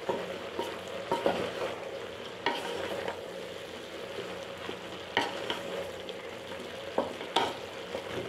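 Wooden spatula stirring chopped mixed vegetables frying in oil in a large metal pot: a steady sizzle with scraping, and several sharp knocks of the spatula against the pot.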